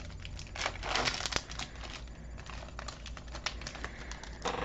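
Foil trading-card booster pack crinkling and being torn open, with the cards handled: a dense crackle about a second in, then scattered light clicks.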